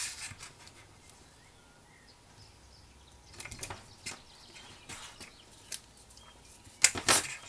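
Tear-off adhesive tape and cardstock being handled as tape strips go onto the card's edges: scattered soft rustles and ticks, with a louder rustle of about half a second near the end.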